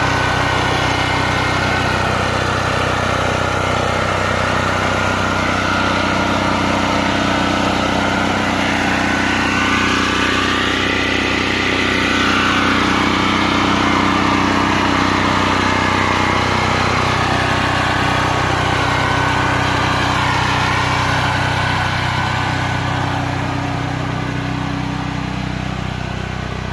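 Generator engine running steadily at a constant speed, dampened by a makeshift two-walled sound barrier of wood panel and Rockwool insulation. It gets a little quieter over the last few seconds.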